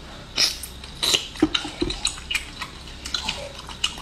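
Wet squelches and sharp clicks from a whole braised octopus in its sauce being handled and pulled apart by hand, an irregular string of sounds starting about half a second in.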